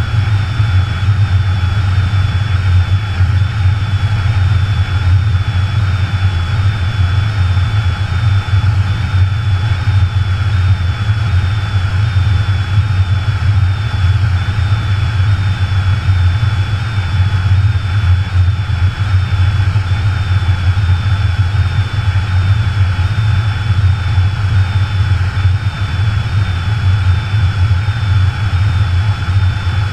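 Steady, low rumbling wind noise on a GoPro in its housing as a skydiving helmet falls unmanned through the air, with a faint high whistle wavering in a regular rhythm.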